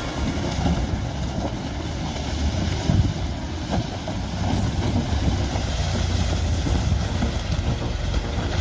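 A vehicle rumbling steadily with wind buffeting the microphone, and a louder bump about three seconds in.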